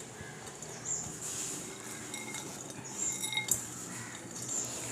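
Sprouted green gram being tipped into a cooking pot: faint pattering of the beans with a few light clinks of utensil on metal, a short cluster of them about three and a half seconds in.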